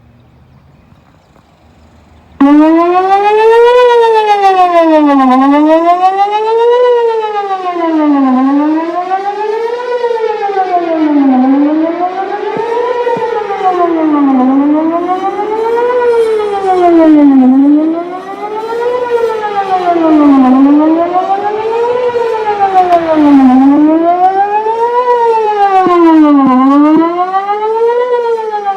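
Whelen WPS 4004 electronic outdoor warning siren cutting in suddenly about two seconds in, then sounding a wail that rises and falls about once every three seconds.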